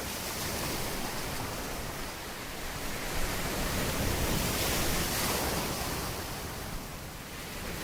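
Steady rushing of sea waves and wind, swelling slightly and easing again.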